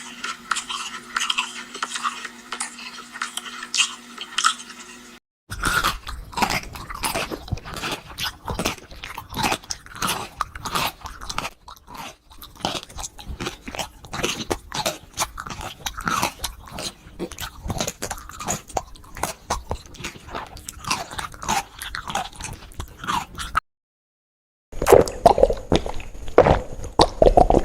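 A person chewing and biting duck meat close up: dense, irregular wet clicks and crunches of chewing. The sound drops out twice, briefly about five seconds in and for about a second near the end.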